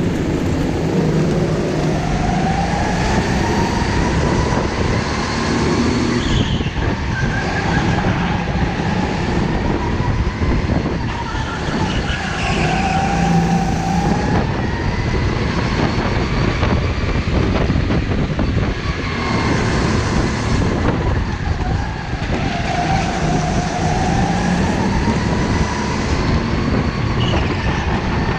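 Go-karts racing, heard from on board: the kart's motor runs loud and steady, its pitch rising and falling again and again as it speeds up on the straights and slows for the corners, over the noise of the other karts around it.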